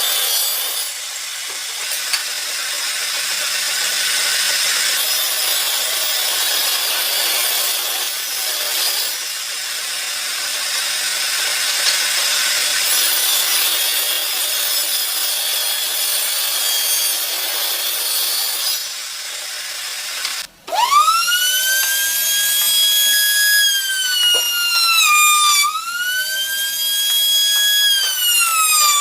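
Wood being sawn with a steady rasping sound. After a short break about twenty seconds in, a high-speed electric tool's motor whines up to speed and dips in pitch twice as it bogs down.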